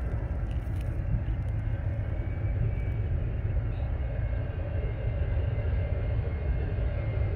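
Twin-engine jet airliner on landing approach, a steady low engine rumble with a faint high whine, growing slightly louder near the end as it comes closer.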